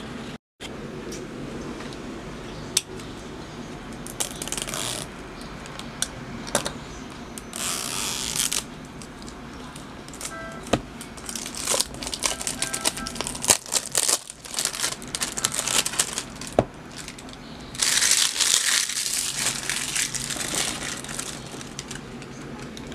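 Cellophane shrink wrap crinkling and tearing as it is peeled off a cardboard perfume box: several bursts of rustling, the longest in the middle and near the end, with small sharp clicks between.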